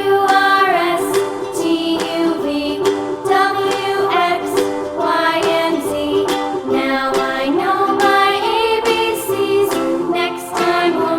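Upbeat background music for children, a melody over a steady beat.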